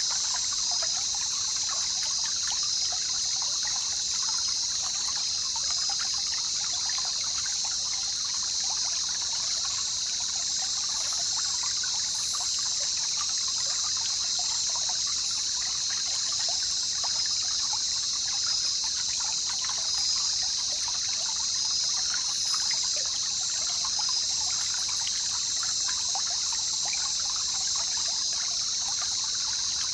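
A jungle river trickling and babbling steadily, with a continuous high-pitched drone over the water.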